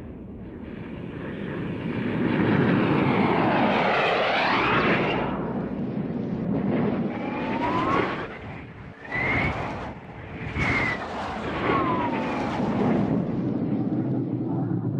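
Science-fiction probe ship fly-by sound effect: a rushing, jet-like noise that swells up, with a tone that dips and climbs again about four seconds in, then two quicker passes at about eight and eleven seconds, each with a whistle that rises and then falls as it goes by.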